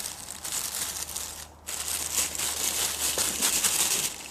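Crinkling and rustling of packaging from a camera lens box as it is handled, with a brief pause about a second and a half in.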